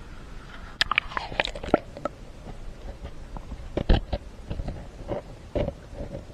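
Irregular clicks, knocks and scrapes of hands and camera handling among creek rocks and shallow water as a newt is set back in, the sharpest knock about four seconds in.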